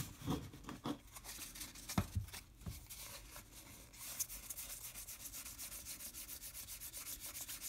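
A stack of 2020 Topps Gypsy Queen baseball cards being handled and then thumbed through. A few soft knocks and rubs come first, then from about four seconds in the cardstock edges flick past the thumb in a fast, even run.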